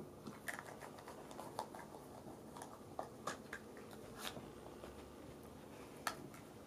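Light scattered clicks and taps of small plastic cups as a dog nudges them with its nose and knocks them over on carpet while sniffing for treats, about eight irregular ticks.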